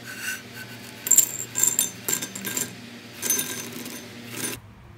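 Toasted bread cubes tumbling from a nonstick pan into a ceramic bowl: a light clattering with ringing clinks, in three bursts.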